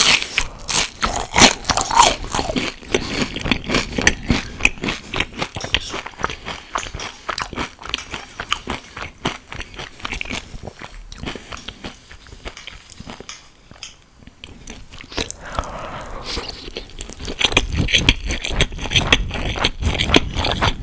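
Close-miked eating: rapid crunchy bites and chewing, loudest at the start and again near the end, with a quieter spell of chewing in between.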